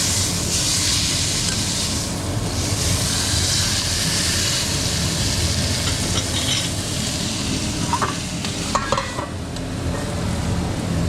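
Chuletón steak sizzling in a hot pan: a steady frying hiss that eases off after about six seconds. A few short clicks with a brief ring come near the end.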